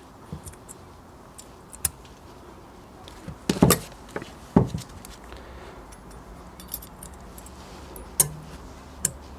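Thin metal brake-pad hardware clips being fitted onto a rear brake caliper carrier: scattered light metallic clicks and clinks, with louder knocks about three and a half and four and a half seconds in and again near the end.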